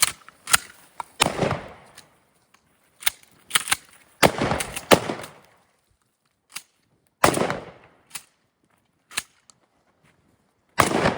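A series of sharp, irregularly spaced bangs and clacks, some loud with a short ringing tail and others brief and faint.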